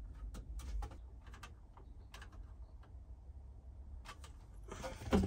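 Light, irregular clicks and taps of small wires and a plastic wiring connector being handled, with a small screwdriver working the connector's terminal screws. There is a louder knock near the end.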